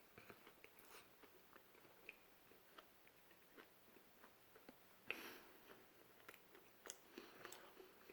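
Faint, close chewing of a bulgogi burrito in a flour tortilla: soft wet mouth clicks and smacks throughout, with a louder bite about five seconds in.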